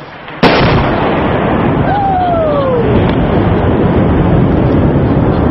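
A single sharp 120 mm mortar blast about half a second in, followed by a loud rumble that carries on through the rest.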